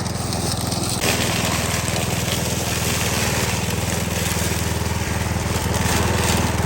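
Ryobi petrol grass cutter's engine running at a steady speed. About a second in, a harsh hiss joins it and continues as the machine cuts grass.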